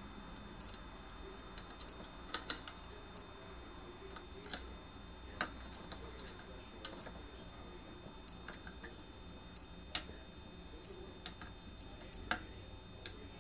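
Irregular, sharp light clicks and taps from a parrot moving about in its bath, a few every few seconds, over a low steady hum.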